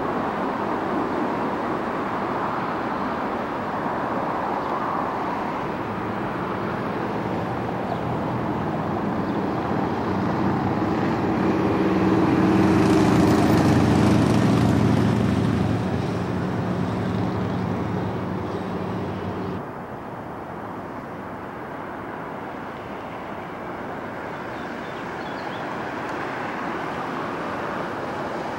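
Street traffic: a steady wash of road noise, with a motor vehicle's engine hum swelling up through the middle, loudest about halfway in, then cutting off suddenly about two-thirds of the way through, leaving a quieter, duller street background.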